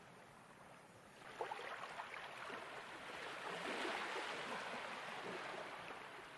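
Soft ocean surf: one wave swells in about a second in, is loudest near the middle, and washes back out toward the end.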